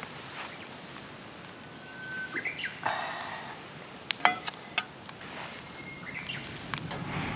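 A bird singing short whistled phrases, each a held note that rises into quicker higher notes, about two seconds in and again near six seconds. A few sharp clicks about four seconds in are the loudest sounds.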